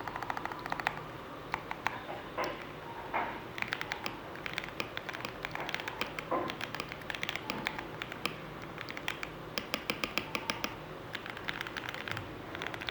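Typing on an E-Yooso Z11 mechanical keyboard fitted with lubed Jixian Matcha Ice 55g linear switches, with foam case, PE foam and penny mods. Quick runs of keystroke clicks, with a few louder single strikes in between.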